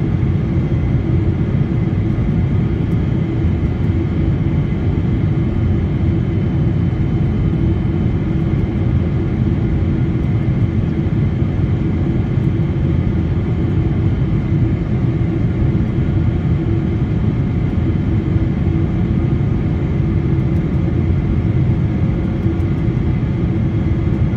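Steady jet airliner cabin noise heard from a window seat: a constant low rumble of engines and airflow, with a few faint steady tones above it.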